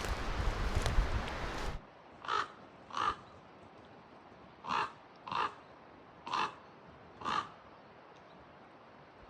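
Wind buffeting the microphone for about the first two seconds, cutting off suddenly. Then a large crow-family bird caws six times in three pairs, harsh calls that the walker takes for a bird, perhaps a raven, trying to scare him off its nest.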